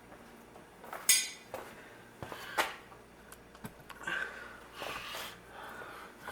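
Steel tools striking and clinking against a VW trailing arm's bearing housing while a grease seal is worked out: a sharp, ringing metal strike about a second in, another hit near the middle, then softer metal-on-metal scraping.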